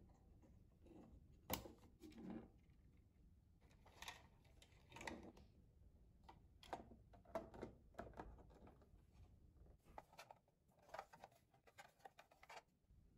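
Faint, irregular clicks and knocks of hard plastic parts being handled and fitted together as the housing of a toy record-making turntable kit is assembled. The sharpest click comes about a second and a half in.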